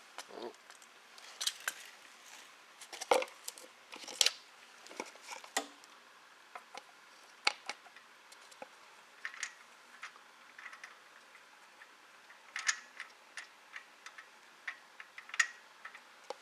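Irregular small metallic clicks, taps and clinks of a small-engine carburetor being taken apart by hand, with a couple of louder clinks about three and four seconds in.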